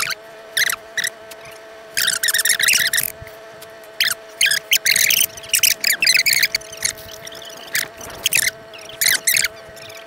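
Boat motor humming steadily while trolling, under irregular shrill squeaks and chirps, each short, coming every second or so.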